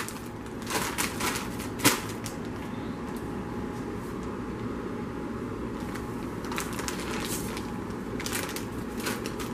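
A foil chip bag crinkling in a few short spells as it is handled and tilted, with a sharp click about two seconds in, over a steady low background hum.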